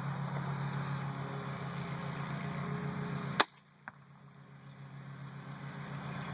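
Parker F4 Tornado crossbow firing: one sharp crack of the string releasing, over a steady low hum. A fainter knock follows about half a second later as the arrow strikes the target 40 yards downrange.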